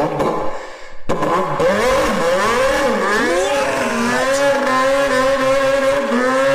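A person imitating a car engine with their voice: revs that rise and fall in pitch, then settle into a steady, held engine drone from about four seconds in.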